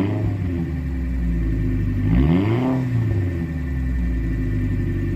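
Fiat 500 engine idling with two short throttle blips. The revs fall back from the first blip at the start, rise and fall again about two seconds in, then settle to a steady idle.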